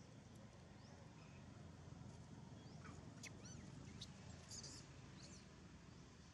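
Faint, short, high-pitched chirps and squeaks, clustered about three to five seconds in, over a quiet outdoor background.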